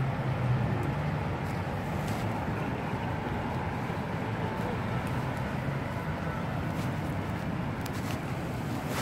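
Steady outdoor city ambience: a low engine hum under a constant wash of traffic noise.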